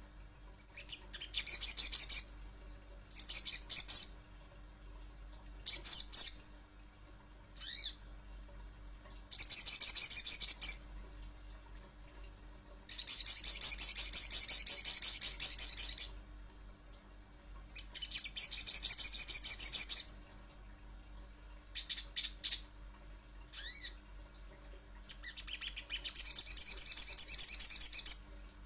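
Little spiderhunter (sogon) singing: repeated bursts of rapid, high-pitched chattering trills separated by short pauses, with one longer trill of about three seconds about halfway through.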